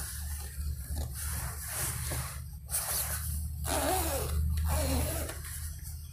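Rustling and swishing of a polyester sleeping bag's fabric as it is handled and pulled about, with irregular swishes over a steady low hum.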